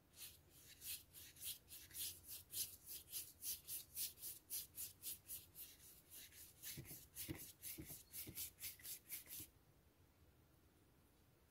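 A wet flat paintbrush scrubbing watercolour paint back and forth across paper, a soft rhythmic swish at about three strokes a second, which then stops.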